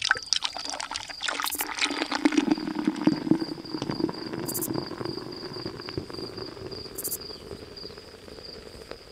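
Water splashing and dripping, busiest in the first couple of seconds and then thinning out. A cricket trills steadily throughout as a high, pulsing chirp.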